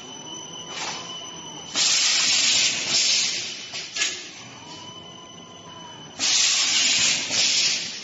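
Automatic non-woven apron making machine running through its cycle: a loud hiss lasting about a second and a half comes twice, some four and a half seconds apart. Between the hisses there are clicks, a steady high whine and a faint whine that rises and falls.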